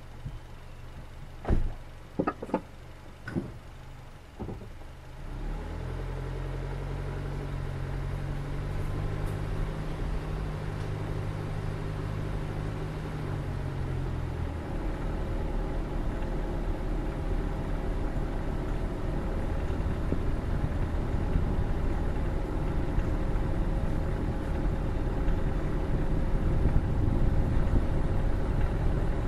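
A few sharp knocks, then a car engine idling with a steady low hum; about halfway through the car pulls away, and the engine and road rumble grow steadily louder as it drives along.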